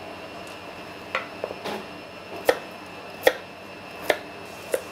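Kitchen knife chopping a raw carrot into thick chunks on a cutting board: a sharp knock of the blade on the board about once a second, six or so in all.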